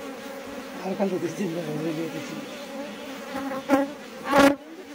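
A dense cluster of honeybees buzzing steadily on the comb. About a second in, a louder buzz wavers up and down in pitch, and near the end there are two short, loud bursts.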